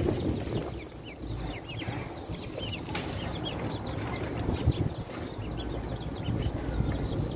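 A brood of young chicks and ducklings peeping: many short, high chirps overlapping throughout, over a low rumble.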